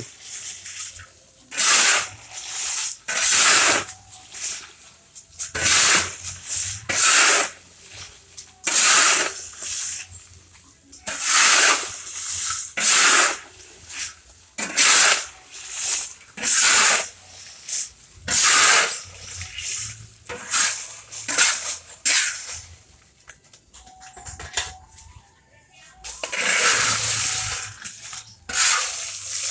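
Sand being stirred and tossed to fry kerupuk melarat, the tapioca crackers fried in hot sand instead of oil: a gritty rushing swish that repeats every second or two.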